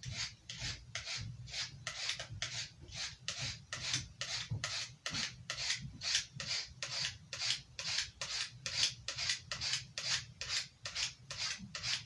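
Knife blade stroked over and over across a coarse-grit metal sharpening plate: an even, rhythmic rasping scrape of about two and a half strokes a second, some thirty strokes sharpening one side of the blade.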